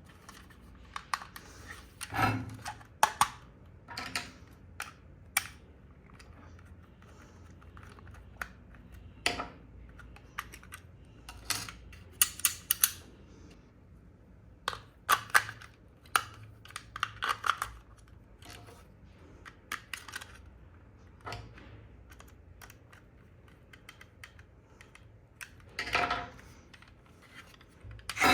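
Irregular clicks, taps and short rustles of hands handling a remote-control toy and its plastic and cardboard packaging.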